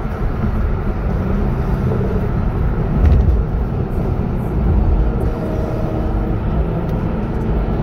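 Car engine and road noise heard inside the cabin while driving, a steady low rumble.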